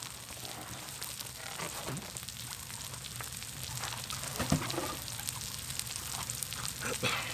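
Food sizzling and frying on a grill: a steady sizzle with fine crackles. A brief low murmur from someone eating comes about four and a half seconds in.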